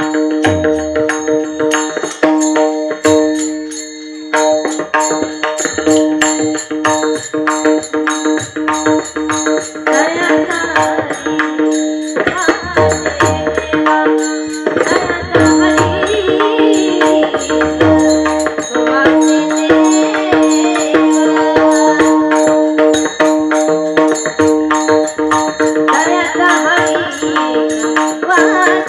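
Marathi devotional kirtan music: a woman sings phrases through a microphone over steady held accompanying notes and fast, dense percussion strokes. The singing comes and goes, strongest about halfway through and again near the end.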